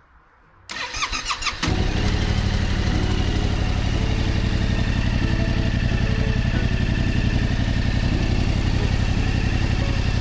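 Yamaha Tracer 7's 689 cc parallel-twin engine, breathing through a LeoVince One Evo exhaust, cranking on the starter for about a second, then catching and settling into a steady idle.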